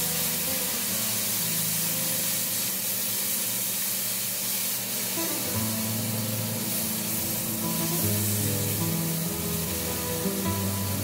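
Grated tomato sizzling as it fries in a pan with onion and red pepper, stirred with a spatula, over background music with held notes.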